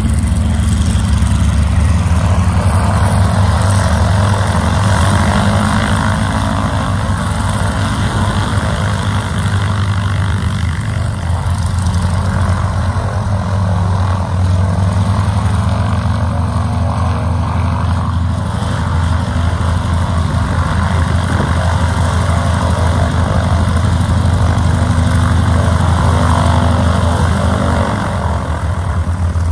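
Radial engine of a North American T-6 Texan-type trainer taxiing at low power on a grass strip: a loud, steady, deep rumble that eases a little near the end.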